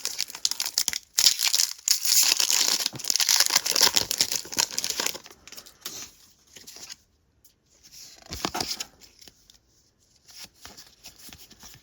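Foil wrapper of a Pokémon TCG booster pack being torn open and crinkled, a dense crackling rustle for a few seconds, then quieter scattered rustles and light taps as the cards are handled.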